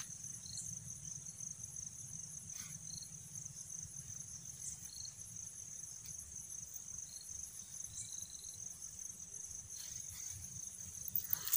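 Night insects trilling steadily in a high, continuous ring, with short chirps every second or two. A faint low rumble runs beneath, and a louder brief noise comes near the end.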